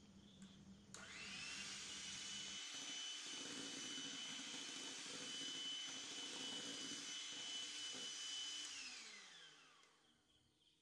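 Electric hand mixer spinning up with a rising whine about a second in, then running steadily as its beaters whisk foamed eggs and vanilla essence. Near the end the motor winds down with a falling whine.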